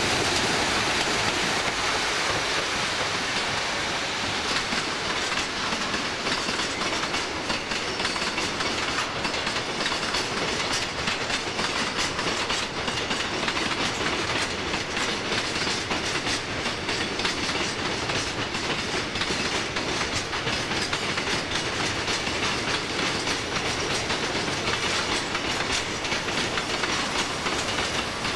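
A freight train of tank wagons, behind an electric locomotive, rolling past close by: a steady rolling rumble with rapid clicking of wheels over the rail joints.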